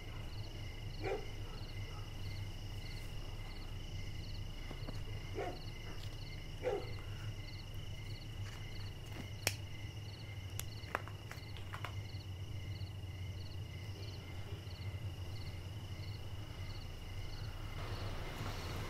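Night ambience of crickets chirping steadily, about three pulses a second over a low hum. About ten seconds in, a few sharp clicks come as a cigarette lighter is struck.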